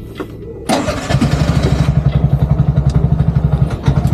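Bajaj Maxima Z auto-rickshaw engine started with the key: a short burst of cranking about a second in, then it catches and idles with a rapid, even beat.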